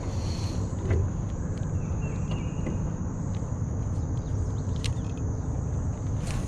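Steady low hum of a small boat's motor pushing the boat along slowly, under a continuous high-pitched drone of insects. A few light clicks stand out about a second in and again near the end.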